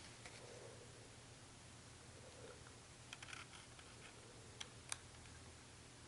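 Near silence with a few faint clicks about three seconds in, then two sharper ticks near the end: a small precision screwdriver being handled and tried against tiny phone screws.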